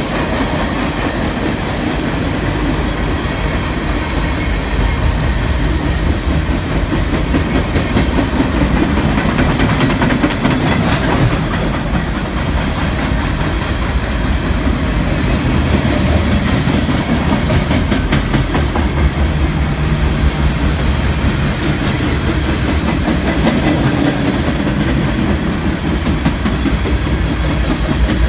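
Local freight train's cars rolling past: a steady heavy rumble with wheels clacking over the rail joints.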